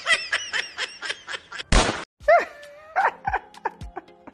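A person laughing in a fast run of short 'ha' pulses, cut off about two seconds in by one sudden loud burst of noise; a few short vocal sounds follow.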